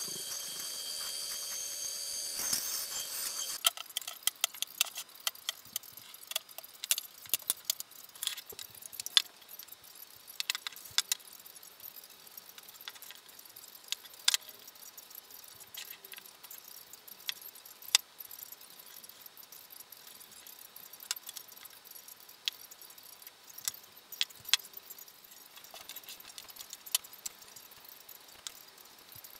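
A bandsaw running steadily for the first few seconds, stopping about three and a half seconds in. After that, a scatter of light clicks and taps as cut MDF letters are picked up and set down on a wooden workbench.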